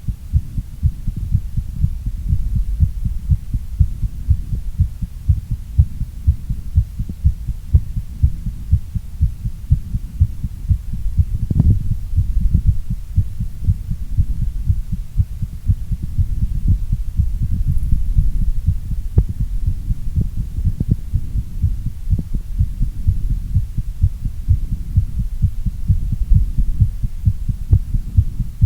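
A person's heartbeat, a fast, steady run of low beats over a low hum, the heart rate raised by exercise.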